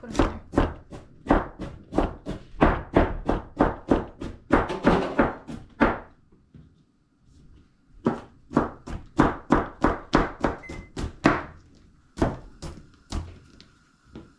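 Knife chopping potatoes on a cutting board: a quick run of sharp strokes, about three a second, then a pause of about two seconds, then another run of strokes and a last few near the end.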